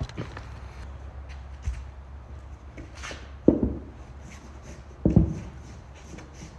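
Handling noise from a large rubber sand tire being lifted and turned by hand: four dull thumps with some rubbing. The two loudest come about three and a half and five seconds in.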